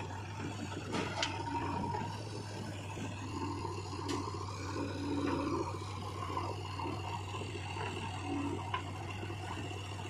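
JCB 3DX backhoe loader's diesel engine running steadily as the backhoe arm works, with scraping and a few sharp knocks as soil is dug and dropped into a tractor trolley.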